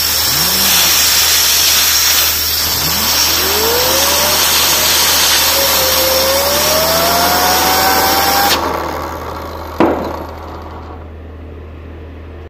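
Compressed air hissing into a small 3D-printed stainless steel Tesla turbine as its disc rotor spools up, a whine rising in pitch twice over the hiss. The air cuts off suddenly about two-thirds of the way through, and a single click follows about a second later.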